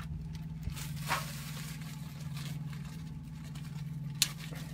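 Carrots being placed onto tin foil in a 12-volt portable lunchbox cooker: a few soft handling sounds and one sharp click about four seconds in, over a steady low hum.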